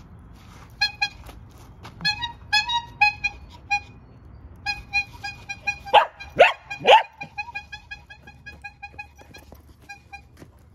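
Bicycle bulb horn squeezed in many short honking toots, in quick runs. A mini goldendoodle barks three times about six seconds in; these are the loudest sounds, and the honks go on rapidly after them.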